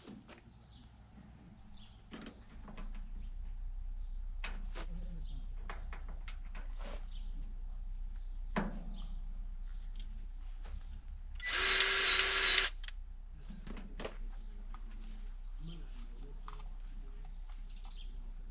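Milwaukee cordless grease gun motor whining in one burst of about a second, pumping grease into a baler fitting. Around it are scattered clicks and knocks of handling, and a steady low hum sets in about three seconds in.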